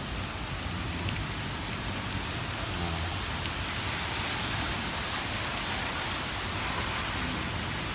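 Steady rain pouring down in a thunderstorm, a dense even hiss that grows slightly louder around the middle.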